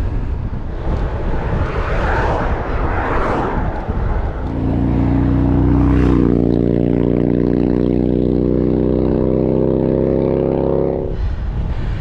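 Rushing wind and riding noise, then from about four seconds in a steady engine drone with a clear, even pitch that holds for about seven seconds and cuts off abruptly shortly before the end.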